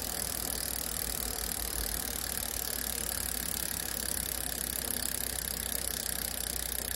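Shimano Tourney rear freehub clicking in a fast, steady buzz as the bicycle wheel freewheels after a hard spin of the pedals: the hub's pawls ratcheting, loud.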